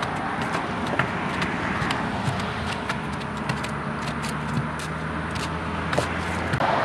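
Hand tamping of dirt and dry-concrete fill around a wooden post with long-handled tools, giving scattered irregular knocks and thuds as the fill is packed tight. Under it, from about two and a half seconds in until shortly before the end, an engine hums steadily.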